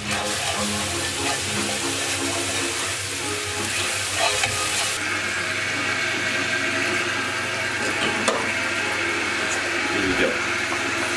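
Pancake batter sizzling in butter in a hot non-stick frying pan on a gas hob, a steady hiss that thins about five seconds in, with a few faint knocks.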